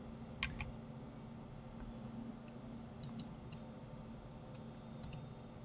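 Scattered faint clicks of a computer mouse and keyboard: three quick ones about half a second in, then a few more between three and five seconds in, over a faint steady hum.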